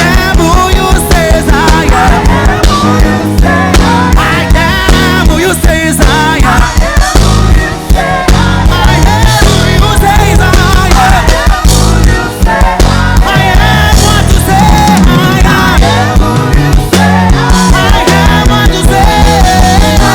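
A live church worship band plays an upbeat song, with a steady drum beat and a heavy bass line under wavering melodic lines.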